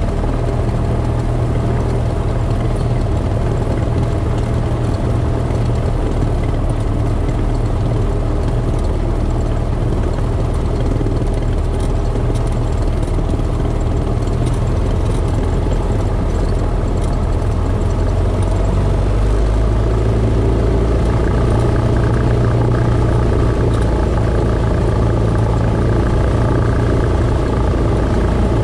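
Single-engine light aircraft's piston engine and propeller running steadily while the plane taxis, the hum getting a little louder about two-thirds of the way through.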